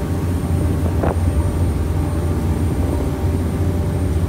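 Steady low engine drone of a boat, heard from on board a moving ferry.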